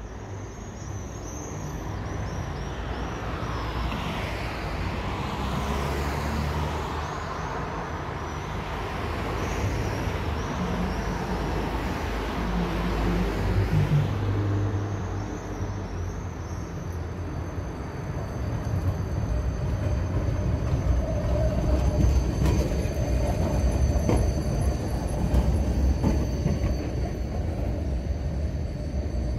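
Tram running on its rails: a steady low rumble with high tones, settling into a steady high whine about halfway through, growing gradually louder toward the end.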